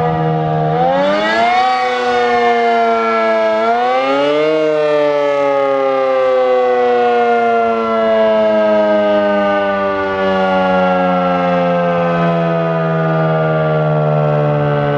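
ACA P-50 outdoor warning siren sounding. Its pitch jumps up twice in quick surges, about one and four seconds in, then falls slowly and steadily as the siren winds down.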